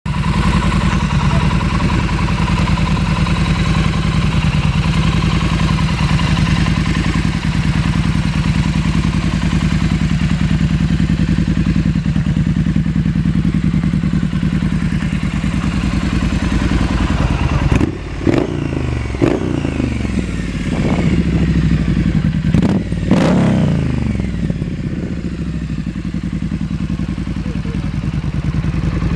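Triumph Street Scrambler's 900 cc parallel-twin idling steadily. Past the middle it is given a few quick blips of the throttle, each rising and falling in pitch, then settles back to idle.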